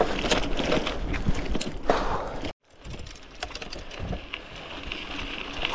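Bicycle riding over a rough path, with tyres crunching and the bike rattling in a dense run of small clicks. It cuts off abruptly about halfway through, then resumes quieter with scattered clicks.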